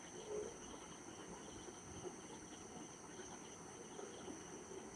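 Faint, steady high-pitched chirring, insect-like, with a softly pulsing chirp beneath it. No clear sound of stirring stands out.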